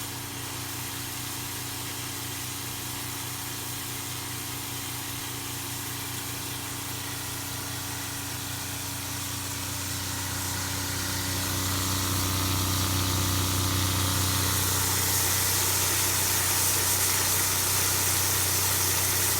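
12-volt Flojet DC water pump humming steadily as it feeds a running Ecotemp L5 propane water heater, with a rushing hiss that swells about ten to fourteen seconds in and then holds steady.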